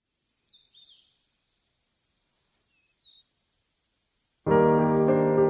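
Faint outdoor ambience: a steady high-pitched insect drone like crickets, with a few short bird chirps. About four and a half seconds in, loud piano background music starts abruptly.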